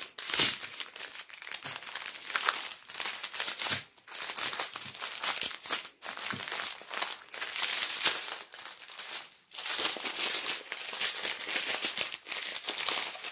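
Small plastic bags of diamond-painting drills crinkling and rustling as they are handled and sorted, with short pauses between bursts.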